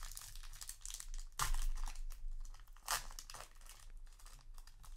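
Foil Yu-Gi-Oh! booster pack crinkling as it is torn open by hand, with a louder rip about a second and a half in and another near three seconds.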